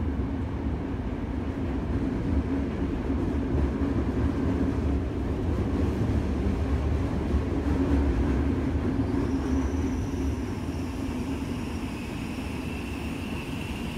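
Metro train running, heard from inside the carriage: a steady low rumble. A faint high whine comes in over the last few seconds as the noise eases slightly.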